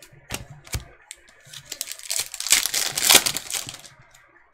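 A couple of sharp clicks of cards being handled, then a trading card pack's wrapper crinkling and tearing as it is ripped open, loudest about three seconds in.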